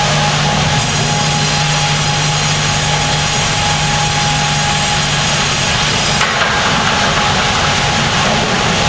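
Sawmill band headrig and log carriage at work, the band saw cutting a log as the carriage feeds it through: a loud, steady mix of blade-on-wood noise and machinery hum. The low hum drops out about six seconds in.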